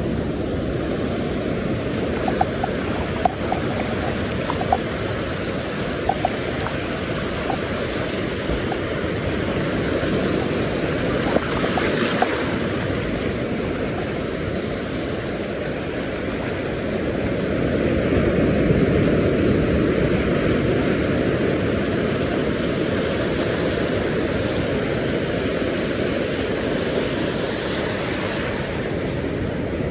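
Surf washing on a beach under a steady rush of wind on the microphone, swelling about two-thirds of the way through, with a few faint clicks in the first dozen seconds.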